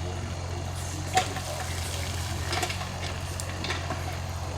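Excavator working gravel: a steady low engine hum, with a crackle of loose stone and a few sharp clicks of rock.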